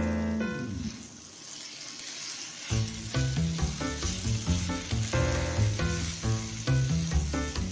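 Chicken and snow peas sizzling in a frying pan as they are stir-fried with a spatula. Background music fades out about a second in and comes back with a steady beat nearly three seconds in.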